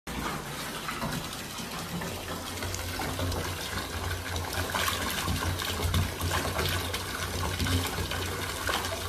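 Bathtub mixer tap running at full flow, water gushing from the spout into a partly filled bath: a steady rush with a low drone beneath it.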